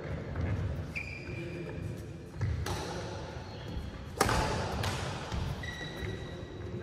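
Badminton rally: a racket strikes the shuttlecock twice, about a second and a half apart, the second hit the loudest and echoing in the hall, with short high squeaks from shoes on the court mat.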